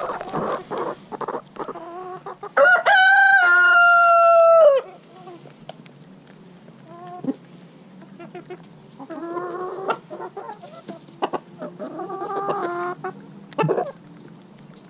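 A rooster crowing once, loud and close, starting about two and a half seconds in and held for about two seconds before dropping in pitch at the end. Chickens cluck in short calls around it.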